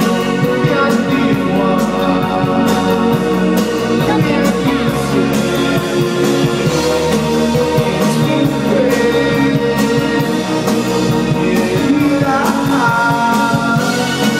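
Live band playing through a festival PA, heard from the crowd: a steady drum beat under electric guitar and keyboards, with a voice singing.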